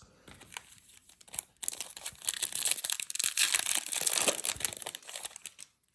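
Foil trading-card pack wrapper being torn open and crinkled, a dense crackling rustle that starts about one and a half seconds in and runs for about four seconds.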